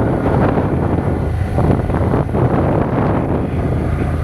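Wind buffeting the microphone over a steady low rumble of a vehicle engine.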